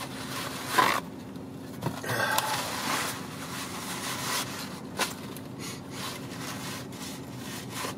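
Paper towel rustling as a sheet is pulled from the roll and used to wipe the mouth, with scattered crinkles and a click, over a steady low hum.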